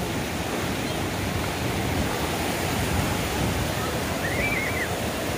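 Steady rushing noise of sea surf, mixed with wind on the microphone.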